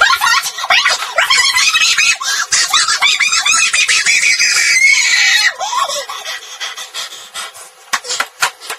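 A boy screaming and yelling in a sped-up, unnaturally high-pitched voice, loud and continuous for about the first five and a half seconds, then dropping to quieter broken shouts.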